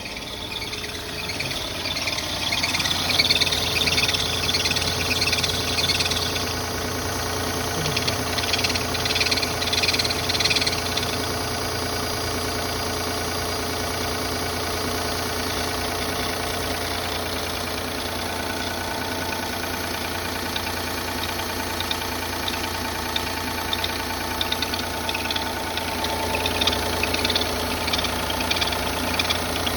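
Car engine idling steadily, with a constant hum and whine from the running engine and its belt-driven accessories.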